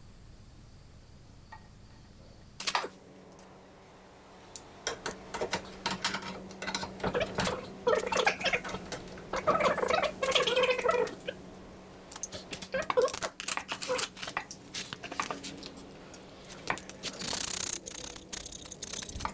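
Irregular clicks, clinks and rattles of hand tools and copper pipe fittings being handled during plumbing work.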